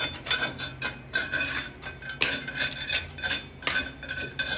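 Metal putty knife scraping loose, crumbling plaster off a wall in quick, irregular strokes, with a thin metallic ring from the blade.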